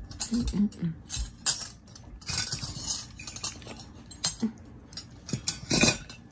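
Eating sounds: cutlery clinking and scraping against a dish, a string of scattered sharp clicks with short rustling bursts.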